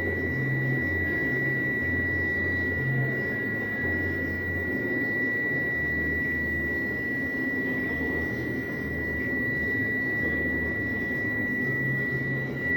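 CNC turn-mill machine running its homing cycle, the X and Z axis drives moving the slides to their reference switches, with a steady high whine over a machine hum.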